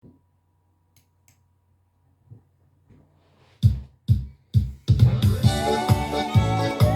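Instrumental intro of a pop song. After a few seconds of near silence with a faint hum, three heavy drum hits sound about half a second apart, then a steady drum-machine beat comes in under held keyboard chords.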